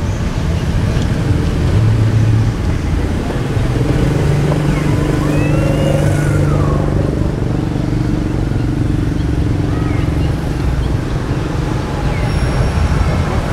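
A motor vehicle's engine running with a steady low drone. A few faint high squeaks come about halfway through.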